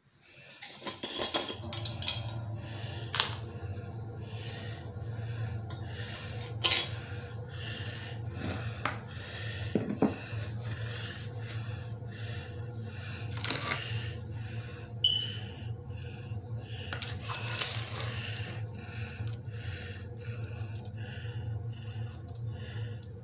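Sugar scrub being stirred by hand in a container: a steady rhythmic scraping, about two strokes a second, with a few sharper knocks against the container, over a steady low hum.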